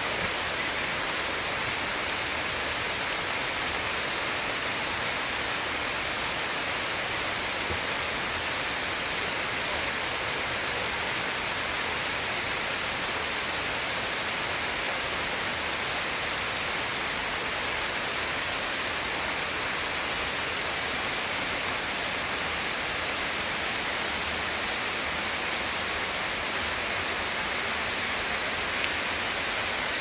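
Steady rain falling on forest leaves and undergrowth: an even, unbroken hiss with no separate drops standing out.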